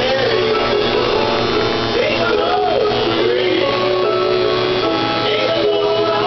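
Background music: a song with a sung melody over a steady accompaniment.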